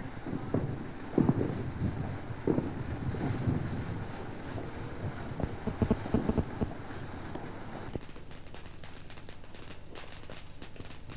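Wind buffeting the camcorder microphone in uneven gusts. About eight seconds in it cuts off abruptly, giving way to a quieter run of rapid small crackling clicks.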